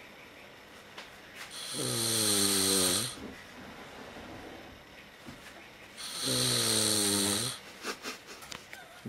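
A man snoring loudly in his sleep: two long snores about four seconds apart, each sinking in pitch as it ends, followed by a few faint clicks.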